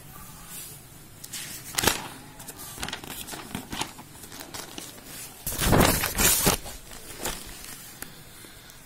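Paper rustling and handling noise: scattered short crinkles and knocks, with the loudest, longest rustle about five and a half seconds in.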